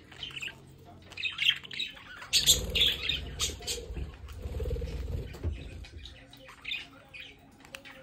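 Budgerigars chattering with short, sharp chirps and squawks, loudest and densest a few seconds in. Under them, a low rumble rises about two seconds in and fades out near six seconds.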